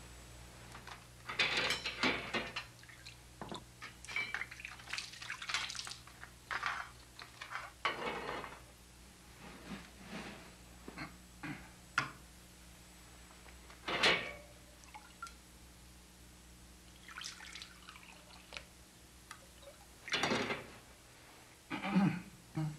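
Water poured and dripping, with metal ritual vessels and a cup clinking now and then, as the haoma cup is rinsed in ritual purification.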